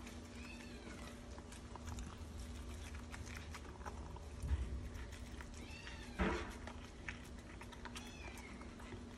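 A puppy eating from a stainless steel bowl, with soft clicks and chewing sounds. A few short, high-pitched animal cries rise and fall over it, the loudest about six seconds in.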